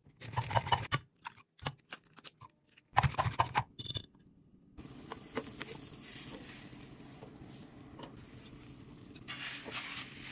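Food packaging and containers being handled: short bursts of rustling and crinkling, with a few small knocks, then a steadier faint hiss from about five seconds in and another burst of rustling near the end.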